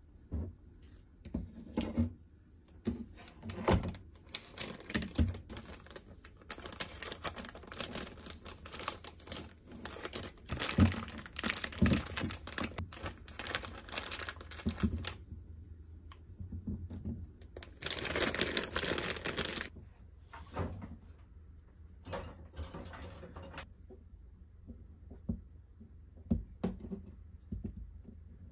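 Thin plastic packaging of a pack of red wiener sausages crinkling and tearing as it is opened, densest in the middle, with a further burst of crinkling later on. Light knocks and taps of the sausages being set down on a cutting board.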